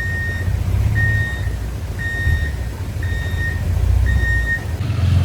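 A heavy machine's reverse alarm beeping about once a second over the low rumble of its diesel engine as it backs up. The beeping stops shortly before the end.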